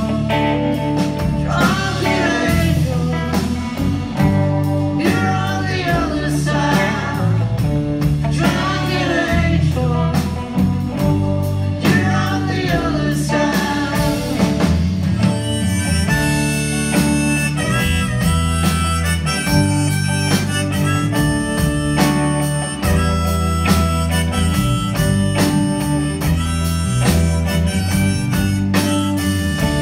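Live band of acoustic and electric guitars, bass and drums playing a mid-tempo country-rock song. About halfway through it moves into an instrumental break carried by a sustained lead line.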